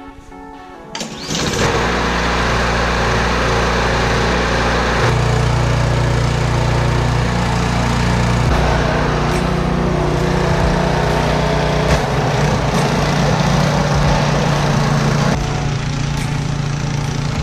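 Husqvarna ST 224 two-stage snowblower running steadily while blowing snow: a loud single-cylinder engine hum under a rushing noise. It comes in about a second in, and its engine note shifts slightly a few times.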